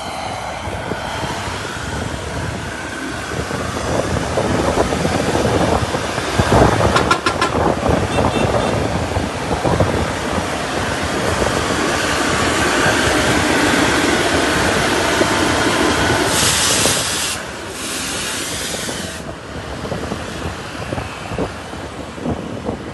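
Heavy road traffic with large vehicles rumbling past close by, loudest about six to eight seconds in. A high hiss runs for a few seconds about two-thirds of the way through.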